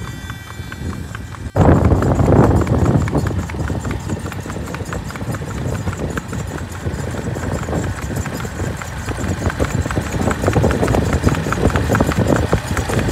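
Kathiyawadi horse's hooves clip-clopping in a quick, steady rhythm as it is ridden. The hoofbeats start suddenly about a second and a half in, after a quieter start.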